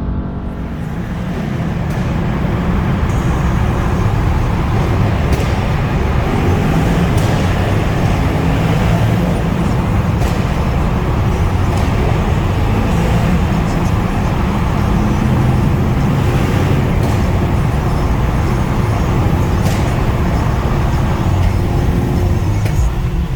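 Mercedes-AMG E63 S twin-turbo V8 running steadily, a deep continuous exhaust drone, with a few faint sharp cracks scattered through.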